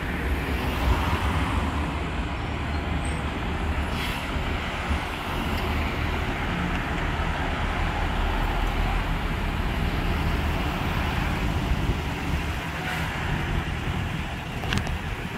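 Street traffic: engines of vehicles waiting and cars driving past close by, a steady low rumble.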